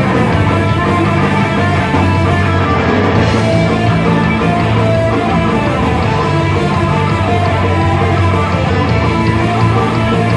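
Loud heavy metal music from a rock band, with distorted electric guitar and bass playing continuously.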